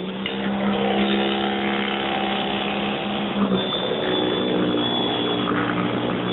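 Battery-powered EGO 21-inch single-stage snowblower running steadily while clearing powder snow: an electric motor hum with a steady pitch over the rush of the auger throwing snow, the pitch dipping slightly about halfway through.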